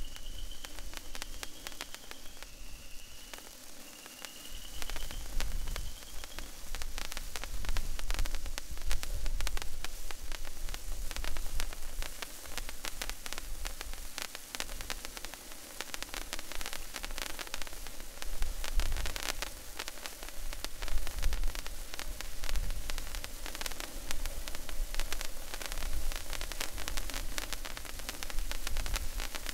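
Patriot Sticks stickless sparkler burning: a steady hiss thick with fine crackles that grow denser a few seconds in. A faint, short, repeated high chirp sounds over it in the first few seconds.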